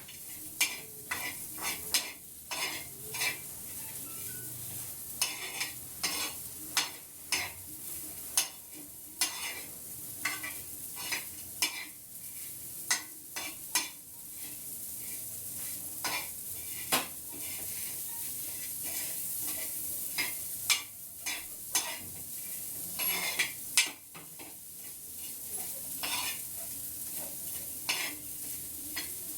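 A utensil scraping and stirring borax (suhaga) on a hot griddle (tawa), with many short irregular scrapes over a steady sizzling hiss. The borax is being roasted until it has fully puffed up and turned white.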